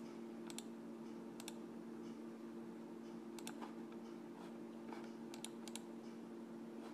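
Faint, scattered clicks of a computer mouse and keyboard, single clicks and a few quick pairs, over a steady low electrical hum.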